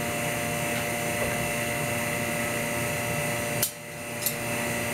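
Vacuum pump running steadily with a whining hum, holding the PVA bag down on the mould for lamination. About three and a half seconds in, the sound cuts out for about half a second, with a click at each end.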